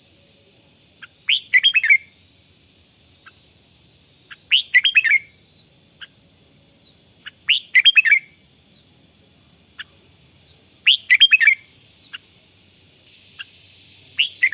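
Red-whiskered bulbul singing short, quick phrases, one about every three seconds, five in all. A faint, steady high-pitched tone runs underneath.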